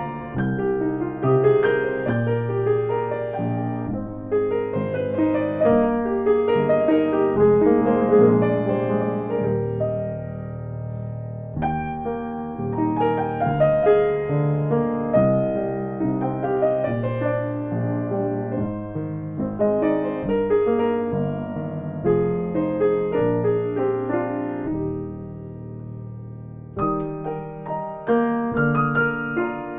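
Piano playing, a continuous passage of chords and melody that softens briefly twice.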